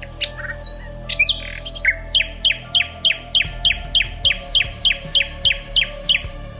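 A songbird singing: a few scattered chirps, then about two seconds in a fast run of repeated down-slurred notes, about four a second, that stops near the end.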